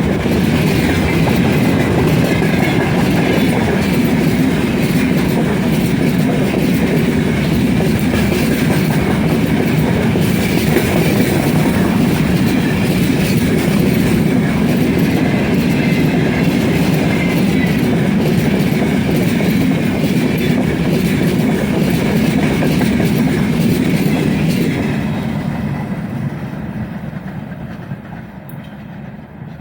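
Long loaded freight train rolling past: a steady rumble and clatter of wagon wheels over the rail joints, fading away over the last few seconds.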